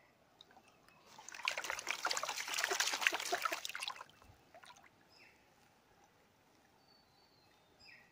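Plastic gold pan of gravel being dipped and swished in river water, splashing and sloshing for about three seconds starting a second in, then only faint water sounds.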